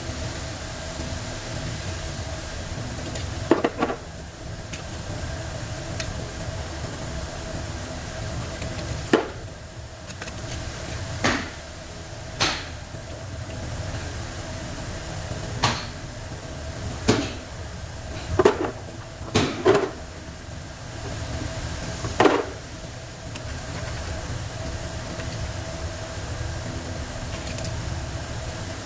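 Irregular sharp knocks and taps, about eleven of them, from hand work on a dynamo being dismantled, over a steady hum with a low rumble and a faint whine. The knocks come mostly in the first two-thirds and stop near the end.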